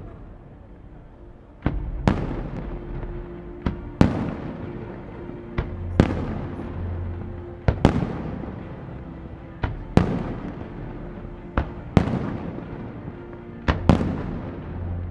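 Aerial firework shells bursting in the sky, a sharp bang about every two seconds, each trailing off in a long echoing rumble, with smaller cracks in between.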